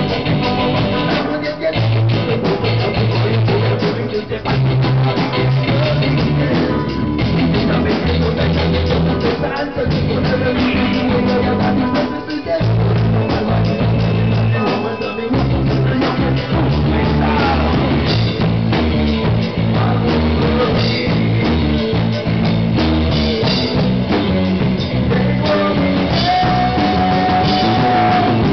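A rock band playing live: electric guitars, bass, drum kit and keyboard, with a male singer. A long held note rings out near the end.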